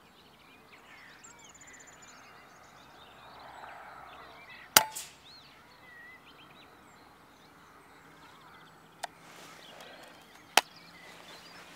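A single shot from a Daystate Mark IV pre-charged pneumatic air rifle about two-thirds of the way in: one sharp crack with a brief tail, the pellet striking a rabbit. Two lighter clicks follow near the end as the rifle's action is worked, over faint birdsong.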